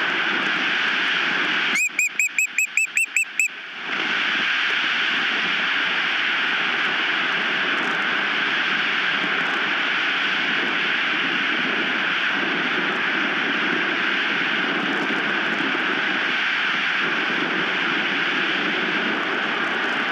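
Strong wind blowing steadily across the nest-cam microphone. About two seconds in, an osprey gives a quick run of about nine high whistled chirps, lasting under two seconds.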